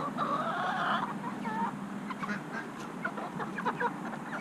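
Backyard chickens and ducks calling: one drawn-out squawking call in the first second, then a busy run of short clucks and chirps.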